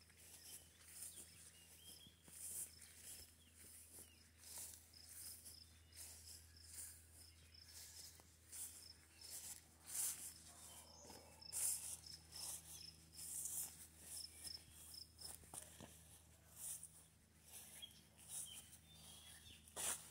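Faint outdoor ambience: insects chirping in a rapid pulsing trill, with brief soft rustling noises every second or so.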